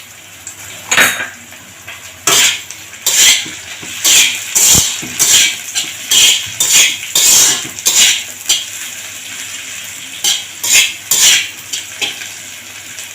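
A metal utensil scraping and clinking against a pan as chopped capsicum, onion and spring onion greens are stir-fried, about two strokes a second. The strokes pause briefly near the end, then come three more.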